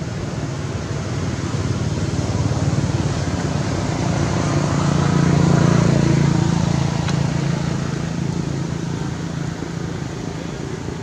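Motor vehicle passing on the road: a steady engine hum that grows louder to a peak about halfway through, then fades away.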